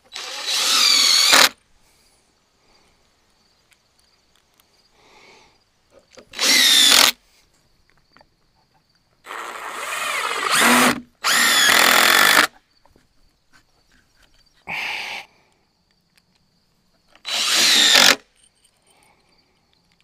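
DeWalt cordless impact driver driving fasteners into a wooden jig frame, in six short runs of about one to one and a half seconds each. The pitch climbs as it spins up, and there is a pause between runs.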